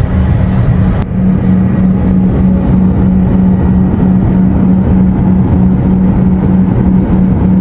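Loud, steady cabin noise of a Bombardier business jet on descent: a low rumble of engines and airflow with a constant hum.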